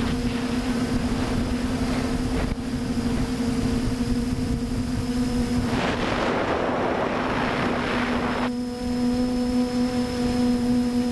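TBS Discovery quadcopter's motors and propellers humming steadily in flight, picked up by the onboard camera. From about six to eight and a half seconds in, wind rushing over the microphone swamps the higher part of the hum.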